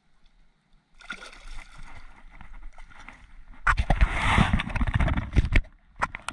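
Water splashing and dripping as a striped bass is let go over the side of a kayak and the hand comes out of the water. About a third of the way in, a hand touching the camera close to the microphone takes over with loud rubbing and knocking, then a few sharp clicks near the end.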